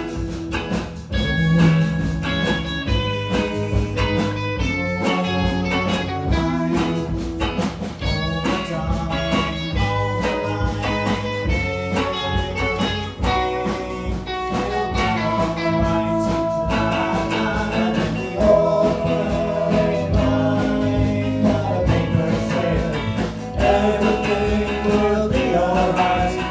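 Indie rock band playing live: guitars, bass and drums with a sung vocal.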